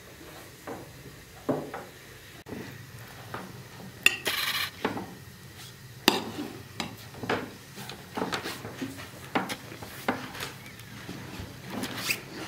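Metal spoons and forks clinking and scraping on ceramic plates as food is served and eaten: irregular clinks, with one longer scrape about four seconds in.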